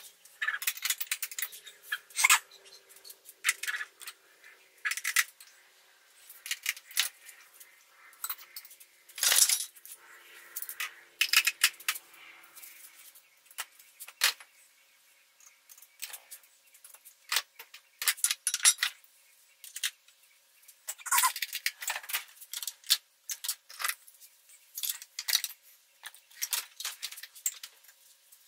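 Metal hand tools clinking and clattering as they are picked up, moved and set down on a steel tool chest top while it is wiped clean: irregular clinks in short runs with pauses between.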